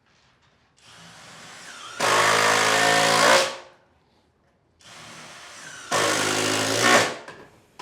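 Cordless drill-driver motor run in two bursts, each starting slow and quiet and then jumping to full speed for a second or so before stopping.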